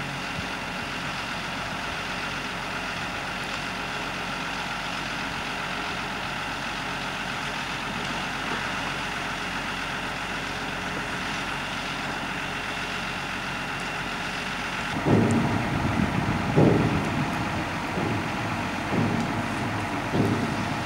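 Tractor engine running steadily at idle. From about fifteen seconds in, uneven low rumbling bursts come in over it.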